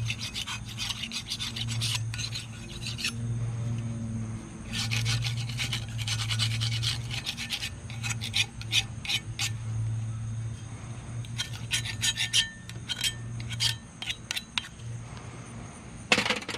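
Metal scraper raked in bursts of quick strokes across a steel rotary lawn mower blade, scratching off caked grass and dirt buildup before sharpening. A low hum runs underneath.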